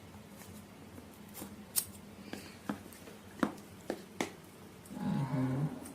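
Cardboard phone retail box being handled and its seal opened: scattered sharp clicks and crinkles of packaging, with a short low hum about five seconds in.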